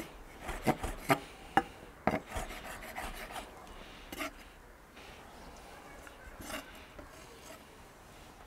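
Kitchen knife chopping pulled pork on a wooden cutting board: irregular knocks of the blade against the board, frequent for the first four seconds, then only one more about six and a half seconds in.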